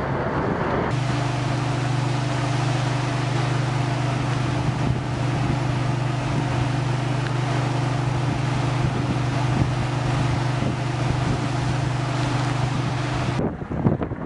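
A motor engine running steadily, a constant low drone with a hiss over it. It starts about a second in and cuts off abruptly near the end, with gusty wind noise on the microphone before and after.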